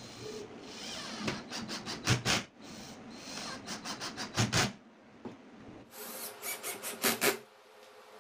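Cordless drill driving a screw into a plywood block in three stop-start bursts, the screw grinding and creaking through the wood; it goes quieter near the end.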